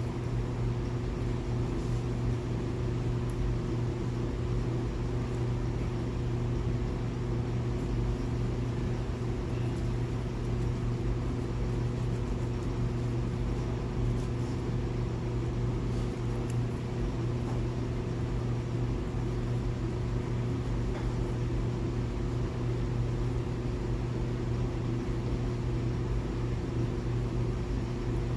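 A steady low mechanical hum, such as a motor or fan, with a few faint ticks.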